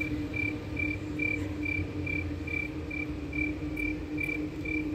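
A cricket chirping steadily, about two short chirps a second, over a low steady hum.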